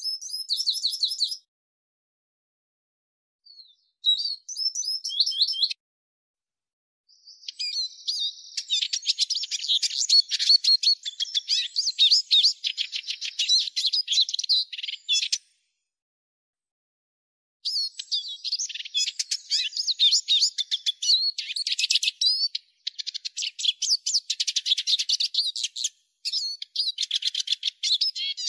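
Eurasian siskin song: a rapid, twittering stream of high chirps and trills in several bouts, broken by short silent gaps, the longest about two seconds after the middle.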